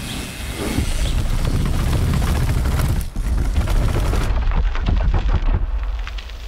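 Downhill mountain bike riding fast down concrete stairs: a heavy rumble with rapid, repeated thuds and clattering as the tyres and suspension hit the step edges.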